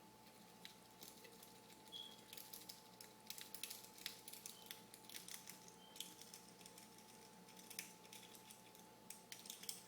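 A bobby pin jiggled and raked inside a Mossberg gun lock, against a pen-clip tension bar, giving faint, irregular metallic clicking and scratching over a steady low hum.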